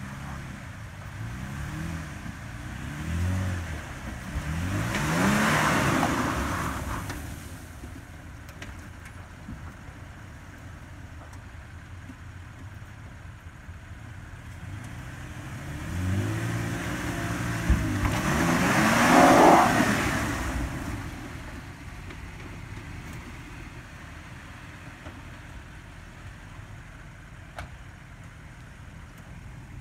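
Lifted Toyota Tacoma pickup's engine revving hard twice while climbing a loose sand hill, the pitch climbing each time. A rushing hiss of tires churning sand comes at each peak. In between the engine runs low and steady, and there is a single sharp knock during the second rev.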